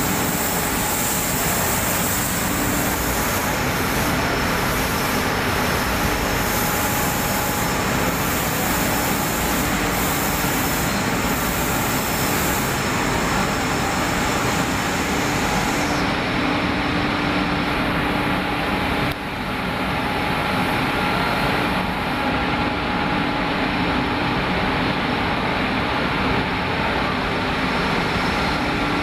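A row of textile waste recycling (cotton-opening) machines running, driven by electric motors. They make a steady, loud mechanical drone with a few steady hum tones through it.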